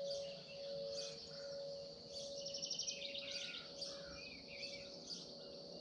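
A large porch wind chime's tubes ringing on in a slowly fading hum, with songbirds chirping over it and a rapid trill about two seconds in.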